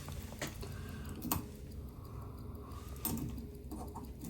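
A few scattered light clicks and taps, irregularly spaced, over a steady low hum.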